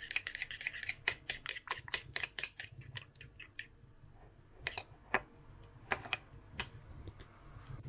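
A utensil beating an egg-yolk glaze in a small bowl: rapid clicking taps against the bowl for about three and a half seconds, then a few slower scattered taps.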